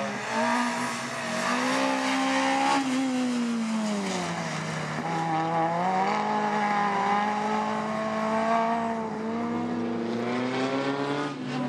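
Racing hatchback engines running hard on a circuit. The engine note falls about four seconds in, then climbs again as the cars accelerate and holds high.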